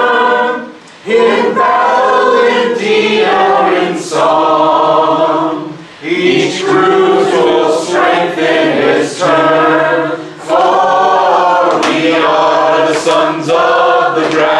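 A small group singing a song a cappella, led by a man's voice, in long phrases with short breaks for breath about a second, six and ten seconds in.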